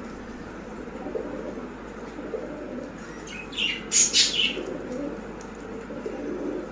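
Baazigar pigeons cooing in repeated low phrases, with a brief louder, higher burst of sound about halfway through.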